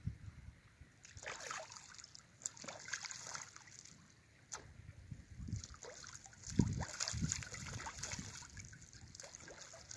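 A duck bathing in a shallow creek: irregular splashes and sloshing as it dips and throws water over itself, the loudest splash about two-thirds of the way through.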